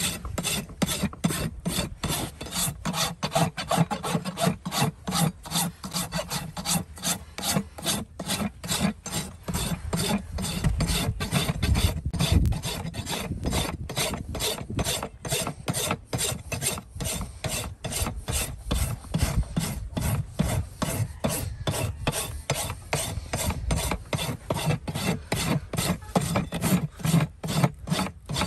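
Farrier's hoof rasp filing a horse's hoof wall in steady back-and-forth strokes, about two or three a second, a dry scraping that dresses and shapes the hoof.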